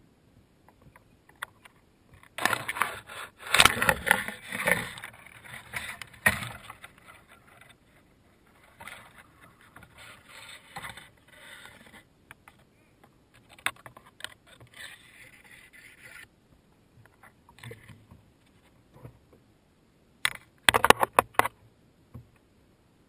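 Dead tree branches scraping and rubbing against a plastic fishing kayak as it pushes through them, in irregular bursts. The heaviest scraping comes a few seconds in, and there is a short sharp burst near the end.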